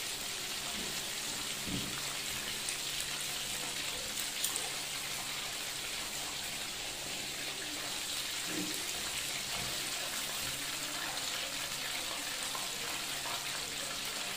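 Batter-coated chicken pieces deep-frying in hot oil, a steady crackling sizzle. The chicken is at the end of its 13 to 14 minutes of frying, crisp and golden brown.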